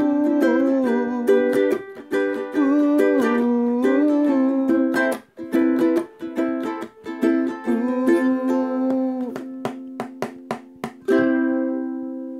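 Xiaomi Populele U1 ukulele strummed in changing chords, while a wordless voice glides along with the tune. About eleven seconds in, a last strum leaves a final chord ringing and fading.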